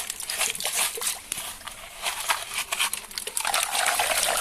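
Hands digging toy vehicles out of a wet, messy pile: a run of rapid clicks, crackles and rustles with some wet sloshing, growing denser near the end.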